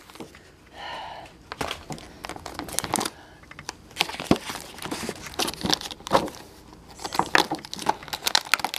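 Clear plastic blister packaging and its cardboard backing being handled and pulled apart: irregular crinkling of thin plastic with some tearing of cardboard.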